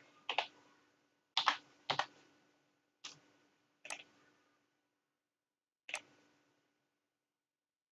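Computer keyboard keystrokes typing a short code: a few separate, unhurried taps over the first three seconds. Then two mouse clicks, about four and six seconds in.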